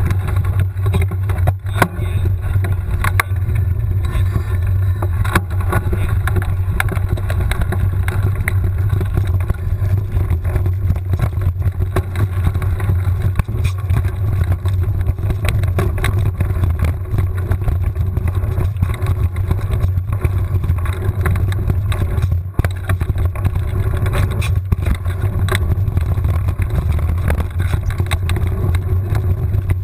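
Steady low rumble of wind buffeting and tyre noise picked up by a handlebar-mounted action camera on a mountain bike riding a dirt trail, with frequent short clicks and rattles from the bike going over bumps.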